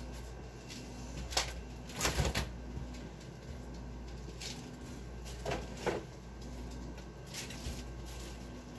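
A handful of scattered knocks and clatters as items are put away in a kitchen, the loudest about two seconds in, over a low steady hum.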